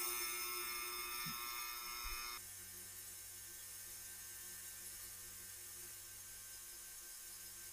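Ultrasonic cleaner running with a steady electric buzz. About two and a half seconds in, its bright high buzz drops away and leaves a steady low hum.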